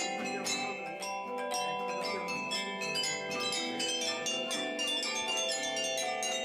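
Several players striking sets of tuned metal tubes (campanine) mounted over wooden resonator boxes with mallets, playing a fast melody of many quick notes that ring on and overlap.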